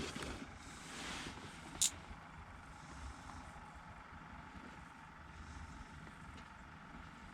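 Faint wind rumble on the microphone outdoors on the ice, with one sharp click a little under two seconds in.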